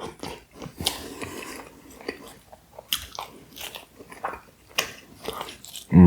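Close-miked chewing and biting of pizza: irregular wet mouth clicks and soft crunches. A brief, loud voiced mouth sound comes right at the end.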